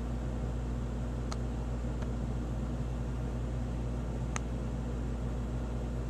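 Steady low hum and hiss from a running machine, with three faint ticks.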